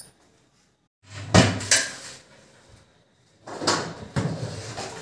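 A wooden cupboard door is opened and metal cooking pots clatter and knock as one is pulled out from inside. There is a cluster of sharp knocks about a second in and more clattering a little past halfway.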